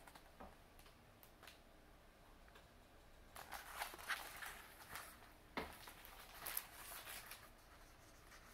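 Faint handling sounds of a hardcover picture book: a few soft rustles and light taps of paper as it is held up and its page turned.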